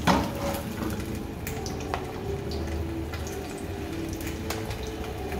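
Smokies sizzling in hot cooking oil in a non-stick frying pan, with a sudden louder sizzle at the start as one goes into the oil, then steady frying with scattered crackles and pops.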